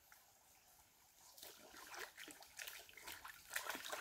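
River water splashing and trickling as pig intestine is rinsed by hand, in irregular splashes that grow louder from about a second and a half in and are loudest near the end.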